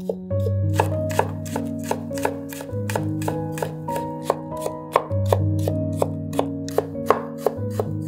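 Chef's knife chopping garlic cloves on a wooden cutting board: quick, even knocks of the blade on the wood, about four a second. Background music with held chords plays underneath.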